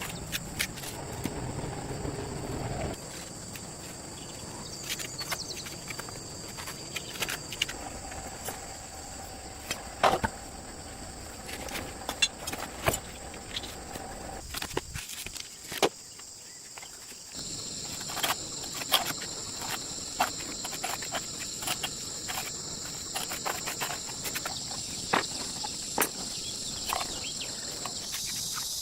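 Insects chirring in a steady high drone, over scattered sharp clicks and knocks; the chirring grows louder a little past halfway through.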